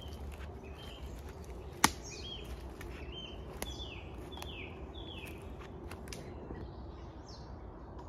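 Woodland songbirds calling, with a run of short chirps that each fall in pitch and repeat about every half second from about two seconds in to nearly six seconds. A single sharp crack comes just before the chirps and is the loudest sound.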